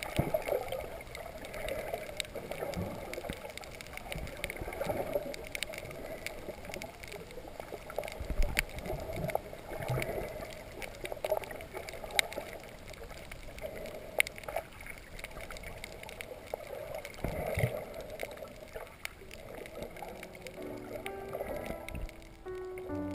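Muffled underwater water noise picked up by a submerged camera, with scattered sharp clicks and crackles and a few low surges of water movement. Music fades in near the end.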